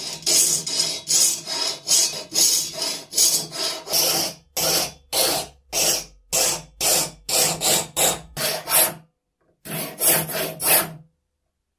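Hand file worked in quick, even strokes, about two a second, with a short pause about nine seconds in, a few more strokes, and then it stops near the end.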